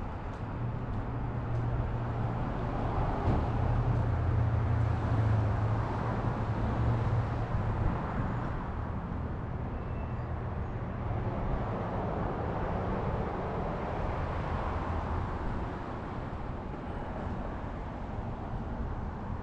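Street traffic: a vehicle engine runs with a low steady hum through the first eight seconds or so, then fades, while passing cars swell and fade several times.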